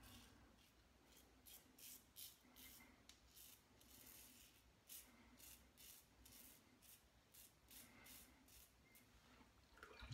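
Double-edge safety razor with a Gillette Super Platinum blade scraping through lathered stubble in a run of short, quick strokes, two or three a second, faint.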